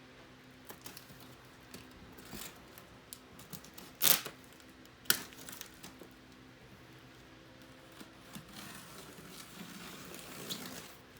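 Packaging being handled and pulled open: scattered rustling and crinkling, with two sharp, loud clicks about a second apart near the middle and busier rustling near the end.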